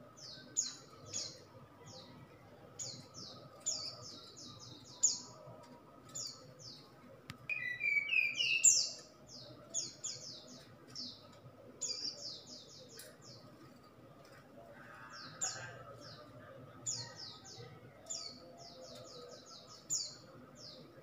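Caged brown-chested jungle flycatcher (sikatan rimba dada coklat) singing: quick phrases of several short, high, falling notes, repeated every second or two. About eight seconds in, a louder, lower run of rising notes is heard.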